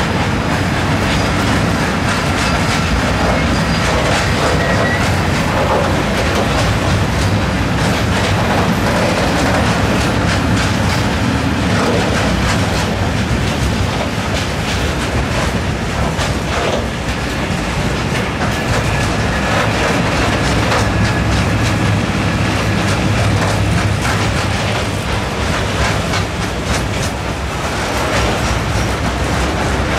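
A train running past at close range: a steady loud rumble of rolling wagons with the wheels clacking over rail joints.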